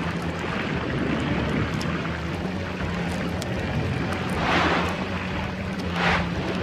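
Underwater ambience: a steady low droning rumble with a rushing watery hiss. Two whooshes swell up and fade in the second half.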